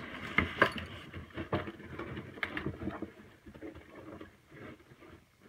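Fabric rustling and handling noise of a soft duffel bag being pulled and tilted as an RC truck is worked through its pouch opening. A few sharp knocks and clicks stand out in the first three seconds, and it grows quieter toward the end.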